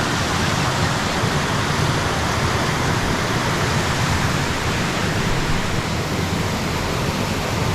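Steady rushing water of a jungle stream.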